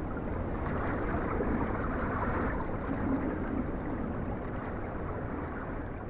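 Churning white water of a fast mountain stream heard from underwater: a steady, dull rush with little treble.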